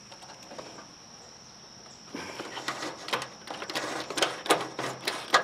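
Irregular metal clanks, clicks and rattles of a truck's steel radiator core support being handled and worked into place, starting about two seconds in and getting louder near the end. A steady high insect drone runs underneath.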